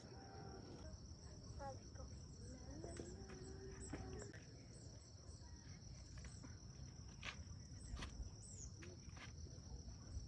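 A steady, unbroken high-pitched insect trill, typical of a chorus of crickets, with faint short chirps above it.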